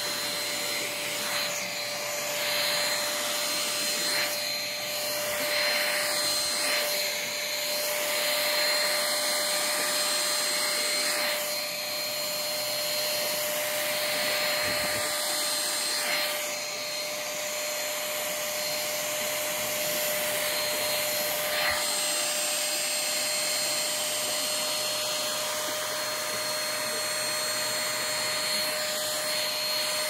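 HiHHY H-611 stick vacuum running without a break, a steady motor whine over a rushing airflow hiss, as its nozzle is worked over a fabric couch cushion sucking up white powder. The sound swells and dips a little as the nozzle moves across and presses into the fabric.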